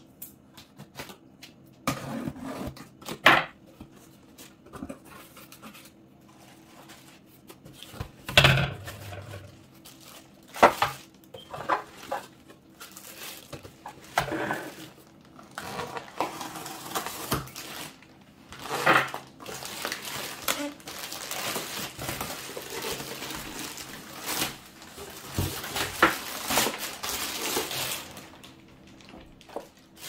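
Unpacking a Hamilton Beach food processor: a cardboard box handled and its tape slit with a knife, and plastic-wrapped bowl and parts rustling as they are lifted out and set down on a table. Irregular sharp knocks and clatters throughout, with denser rustling of plastic wrap in the second half.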